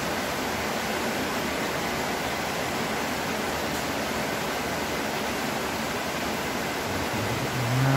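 Steady, even hiss of background noise with no distinct events. A short hum of a voice comes near the end.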